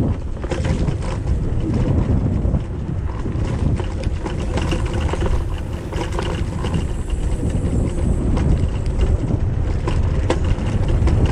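Kugoo Max Speed electric scooter ridden over a rough, pebbly sandy track: a steady tyre rumble with many small rattles and clicks from the frame and fittings as it jolts over the bumps and stones.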